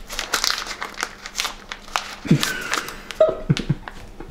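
Crinkling and crackling of a spice packet being folded and pressed shut, with a few short vocal sounds about halfway through.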